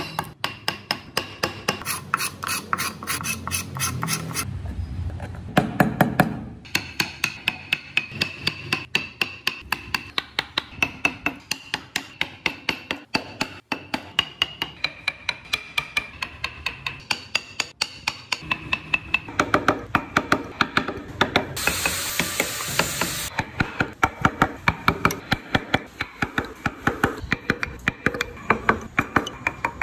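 Mallet tapping a wood-carving chisel into a solid block of Fujian cypress: steady repeated sharp strikes, about two to three a second, as chips are cut away.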